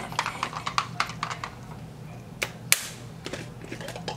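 Plastic baby bottle being handled, shaken and its cap twisted: a quick irregular run of sharp plastic clicks and taps, with one louder snap a little past the middle, over a low steady hum.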